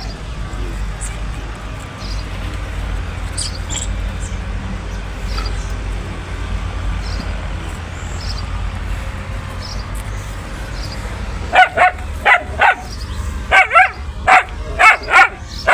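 A dog barking in a quick run of about nine loud barks, starting about eleven seconds in, over a steady low rumble.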